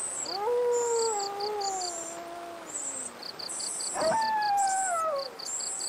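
A dog howling twice in long, slowly falling howls, the first lasting about two and a half seconds and the second starting about four seconds in. Above them, insects chirp in quick runs of short pulses, about five a second, over a faint steady rain hiss.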